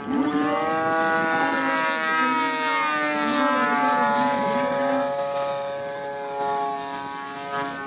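Engine of a radio-controlled model airplane driving a wooden propeller in flight: a steady, loud buzzing drone whose pitch drifts slightly.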